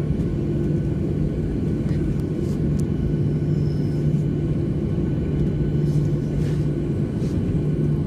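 Cabin noise of a jet airliner taxiing: the engines at taxi idle give a steady low rumble with a constant hum. A few faint clicks sound over it.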